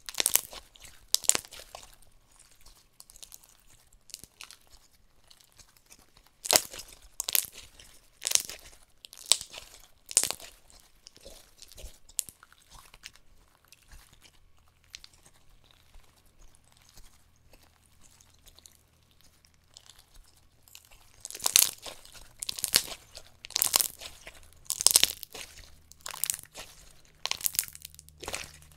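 Hand-played slime with crunchy toppings being squished, stretched and folded, giving sharp crunching crackles and pops in clusters, with a quieter stretch in the middle.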